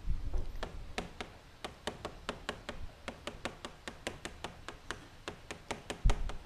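Chalk tapping and clicking against a blackboard as characters are written, several sharp taps a second. A low thump sounds at the start and a louder one near the end.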